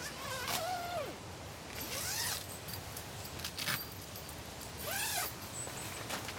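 A zipper being pulled in about four short strokes, each a quick rasp that sweeps up and down in pitch.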